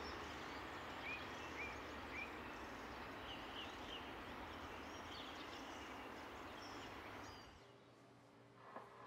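Outdoor ambience: a steady hiss with small birds chirping over it, three short chirps in the first couple of seconds and a few more after. It cuts off suddenly a little before the end, leaving quiet room sound and a faint tap.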